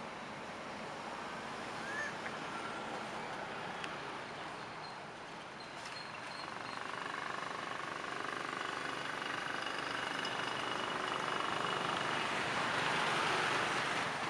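Steady outdoor background hiss that swells near the end, with a few faint short chirps in the first few seconds.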